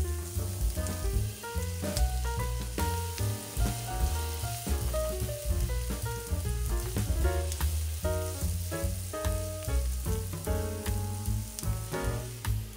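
Diced onion sizzling in hot oil in a frying pan and being stirred with a slotted plastic spatula, under background music with a steady bass pattern.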